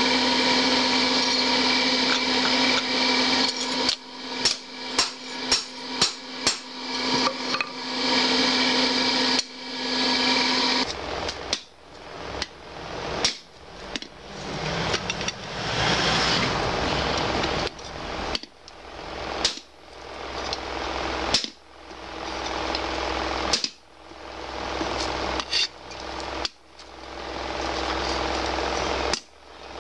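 Blacksmith's hand hammer striking a red-hot 52100 bearing-steel parang blade on a steel anvil: quick strikes about two a second for several seconds, then slower single blows a second or two apart. A steady machine hum runs under the first third and stops about eleven seconds in.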